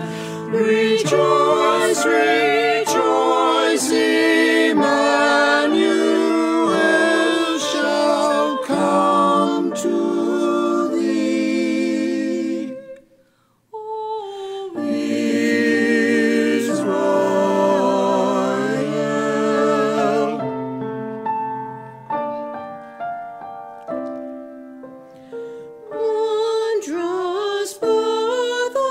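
A small church choir singing with vibrato, with piano accompaniment. The music breaks off briefly about halfway through, resumes, thins to a quieter passage, then swells again near the end.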